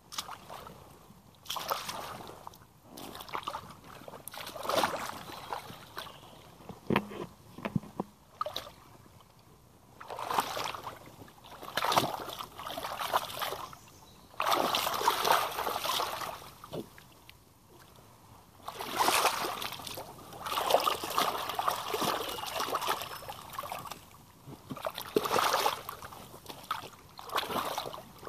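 Rubber boots wading and stomping through shallow muddy water, each step splashing and sloshing. The splashing comes in irregular bursts of a second or two with short quieter pauses between.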